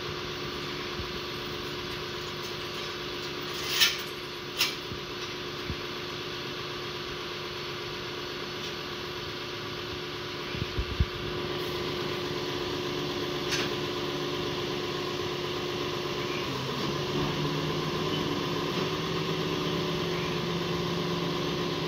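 Tow truck engine idling steadily, with two sharp knocks about four seconds in and a few more around eleven seconds. About three-quarters of the way through, the engine note dips and then settles steadier and a little louder as the wheel-lift raises the rear of the bus.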